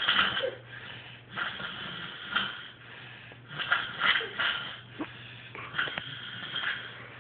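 Snoring: a run of noisy, rasping breaths coming every second or so, some much louder than others.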